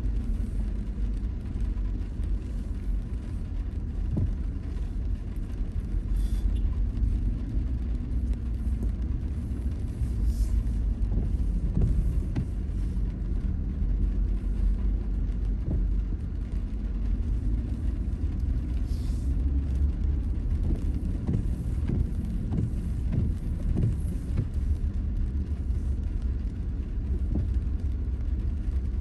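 Low, steady rumble of a car's engine and tyres heard from inside the cabin as it drives slowly, with a few faint knocks.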